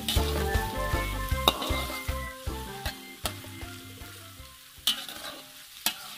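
Oil sizzling as sliced onion, garlic, green chilli and dried anchovies are stir-fried in a wok, with a metal spatula scraping and clicking against the pan, over background music. Both grow quieter in the second half.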